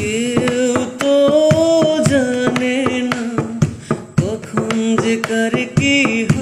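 Background music from a Bengali song, between sung lines: a long held melody line that wavers in pitch over a steady percussion beat.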